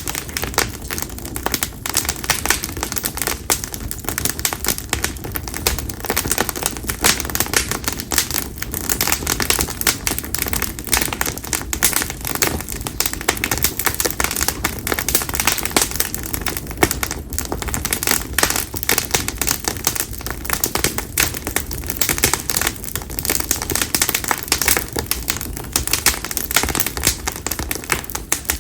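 Split konara oak firewood burning in an open campfire, crackling and popping continuously with dense, irregular sharp snaps.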